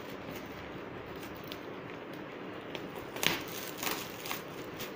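Shiny metallic foil gift wrap and paper rustling and crinkling as a present is unwrapped by hand, with a sharp crackle a little over three seconds in.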